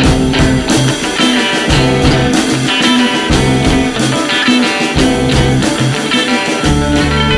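Guitar-led rock music over a steady drum beat; the low bass part drops out and comes back in just before the end.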